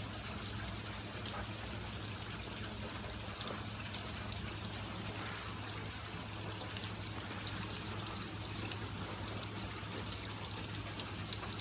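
Steady light rain with water trickling and dripping as the downpour eases off.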